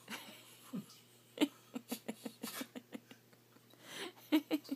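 A person's voice making a quick run of short pitched sounds, about five a second, then a few more near the end.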